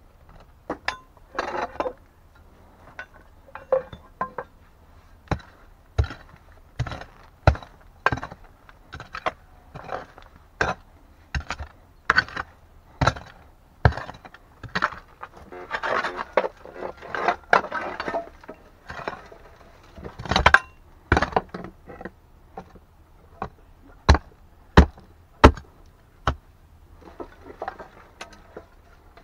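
A hand digging tool chopping and scraping into stony soil: irregular sharp strikes, one or two a second, with gritty scraping and clinks on stone between, a few strikes louder than the rest in the second half.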